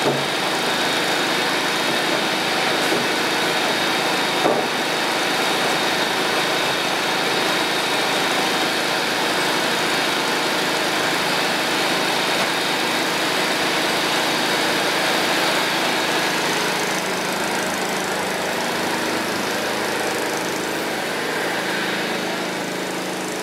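Grape stemmer-crusher running steadily as it de-stems the fruit, a continuous motor-driven machine hum with steady tones; it eases slightly quieter toward the end.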